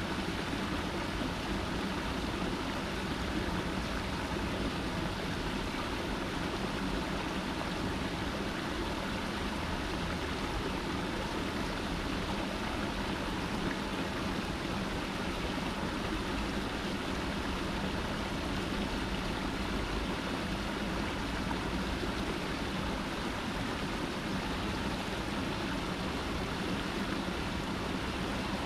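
Water spilling over a low rock cascade into a still pool, a steady rush and splash of falling water.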